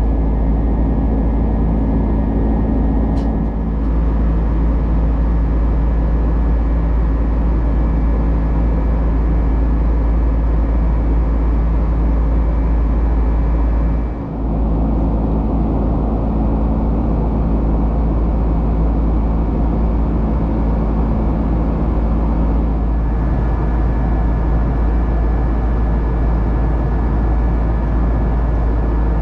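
Steady airliner cabin noise inside a Boeing 767-300: a loud, constant low rumble of engines and airflow with faint steady whining tones. It dips briefly about fourteen seconds in.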